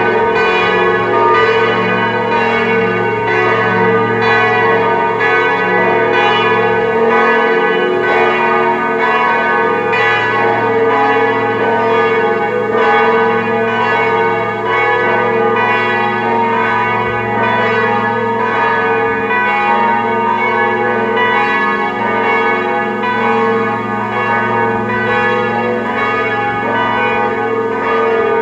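Grassmayr-cast church bells of a four-bell peal tuned B♭, E♭, G♭, A♭ swinging and ringing together, their strokes overlapping in a continuous loud peal.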